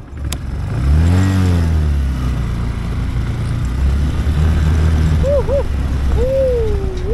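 Motorcycle engine revving as the bike pulls away, its pitch rising and falling about a second in, then running steadily as it rides onto a gravel track. A couple of short vocal sounds from the rider come near the end.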